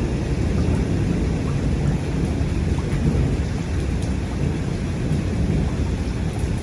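Heavy rain pouring steadily, with a continuous low rumble underneath.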